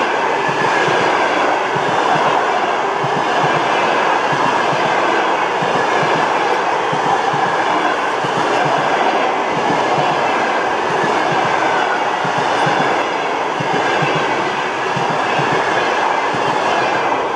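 Passenger coaches of a train rolling past at speed close by, a steady rail noise with rapid knocks from the wheels. The last coach goes by near the end.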